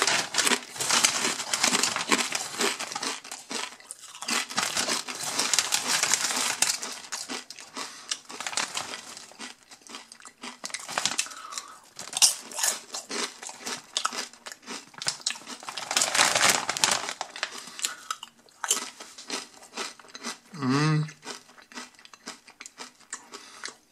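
Foil-lined potato chip bag crinkling and rustling as a hand rummages through the chips, with many crisp clicks. It comes in heavy stretches, longest in the first several seconds and again about two-thirds of the way through.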